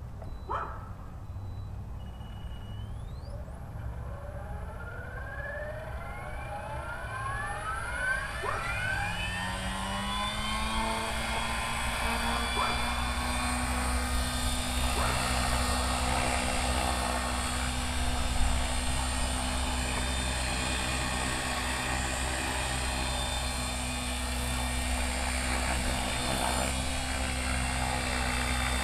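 Align T-Rex 550E Pro DFC electric RC helicopter spooling up: the brushless motor and rotor whine rise in pitch and grow louder over the first ten seconds or so, then hold steady at flying speed.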